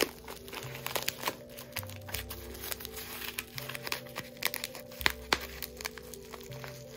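Plastic bubble wrap crinkling and crackling as it is unwrapped and handled by hand, a run of small irregular crackles. Soft background music with low, sustained notes plays underneath.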